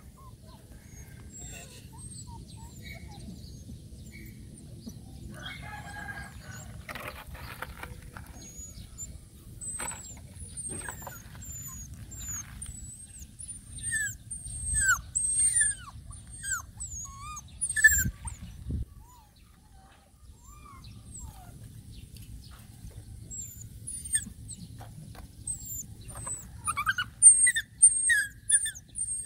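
Young puppies whimpering and yelping: many short, thin, high cries that slide down in pitch, coming in clusters about halfway through and again near the end, over a steady low rumble with a few knocks.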